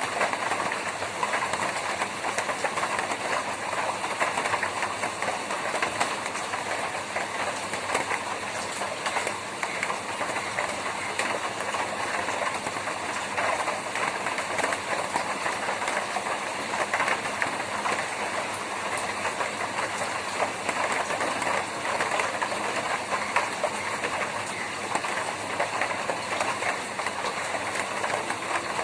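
Rain drumming steadily on a tin roof: a dense patter of drops full of sharp little ticks, at an even level throughout.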